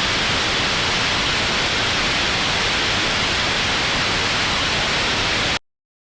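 Loud, steady static hiss, like a broadcast signal breaking up, cutting off suddenly about five and a half seconds in.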